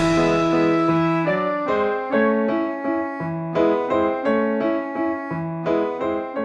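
Background music: a piano playing a melody of single notes and chords, struck about twice a second.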